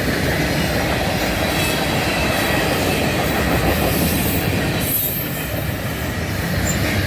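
Freight cars of a CN manifest train rolling past at close range: a steady rumble of steel wheels on rail, dipping a little about five seconds in.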